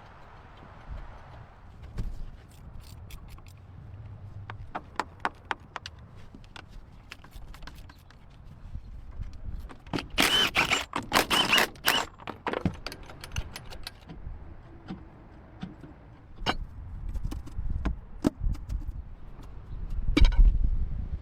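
Hand tools and metal engine parts being worked on, with scattered clicks and clinks. A stretch of metallic clatter and scraping comes about halfway through, and a heavy thump near the end.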